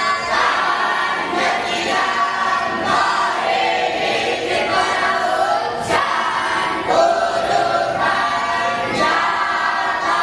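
A group of voices singing or chanting together in unison, steady and continuous.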